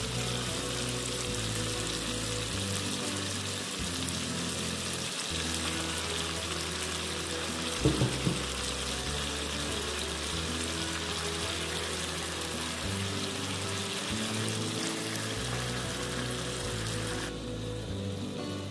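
Chicken drumsticks sizzling as they fry in oil in a pan, with a brief loud knock about eight seconds in; the sizzle drops away near the end. Background music with slow, low held notes plays under it.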